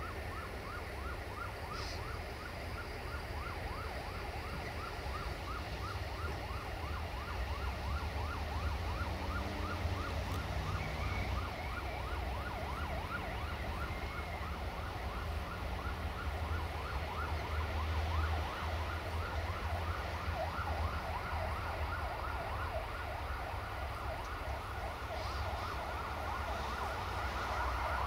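Siemens Desiro VT642 diesel multiple unit running slowly: a steady low engine rumble under a rapid, repeating high squeal, about four a second, that grows louder toward the end.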